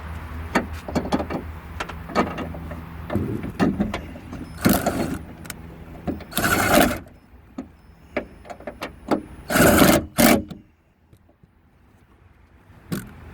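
Hand-tool work on a car's trunk lock: a run of sharp clicks and clatter as the lock's 10mm bolt is tightened back in, with three louder rattling bursts, over a steady low hum. It goes quieter for the last few seconds.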